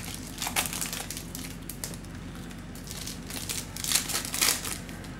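Foil wrapper of a Panini Select football card pack crinkling as it is torn and peeled open by hand. The crinkle comes in short bursts, about half a second in and most loudly around four seconds in.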